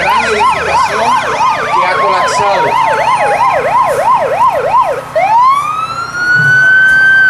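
Emergency vehicle sirens: a fast yelp sweeping up and down about three to four times a second, with a second siren sliding slowly down in pitch beneath it. About five seconds in the yelp stops and a wail rises and holds on a high note.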